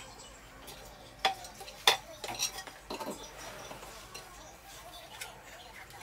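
Scattered sharp clicks and clinks of small hard objects being handled, with two louder knocks about a second and two seconds in, then a quick run of lighter clicks.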